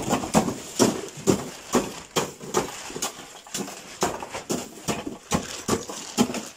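Footsteps on a concrete floor, a steady walking rhythm of about two sharp steps a second.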